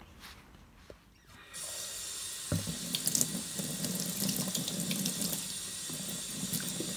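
Kitchen tap running into a stainless steel sink, splashing over courgette flowers being rinsed in a bowl beneath it. The water comes on suddenly about a second and a half in, and there is a single knock a second later.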